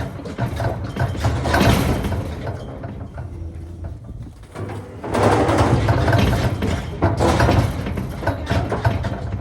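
Metallic rattling and clanking over a steady low engine hum, loudest about halfway through.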